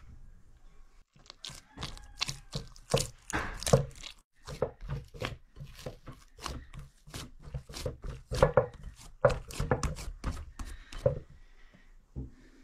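Dough being mixed and kneaded by hand in a glass bowl: a quick, irregular run of soft slaps and thuds of dough pressed against the glass, starting about a second in and stopping about a second before the end.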